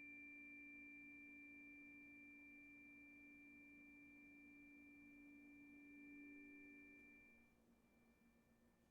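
Faint ringing of a struck sound-bath instrument: a low note with higher overtones, held steady and slowly dying away, fading out about three-quarters of the way through.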